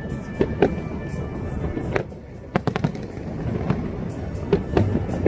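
Fireworks display: a quick run of booms and crackling bangs, a short lull about two seconds in, then the bangs pick up again.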